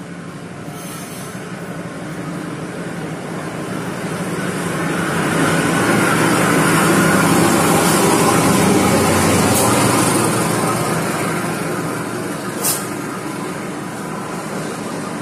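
Diesel locomotive with a passenger train passing close by. The engine's steady drone builds as the locomotive approaches. Then the wheel and rail noise of the coaches swells to its loudest midway and eases off a little, with one short sharp knock near the end.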